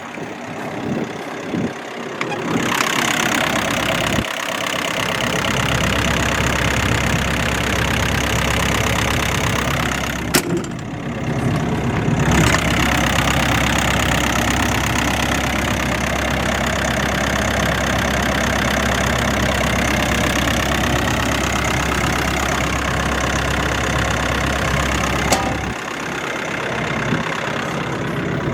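A 2015 MQ Power 56 kW diesel generator's engine starts a couple of seconds in and runs steadily with a constant low hum. There is one sharp click about ten seconds in, and the low hum drops out near the end.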